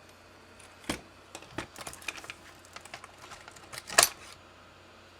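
Small hard clicks and taps of hand tools and plastic RC truck parts being handled: a scattered run of light ticks, with a sharper knock about four seconds in.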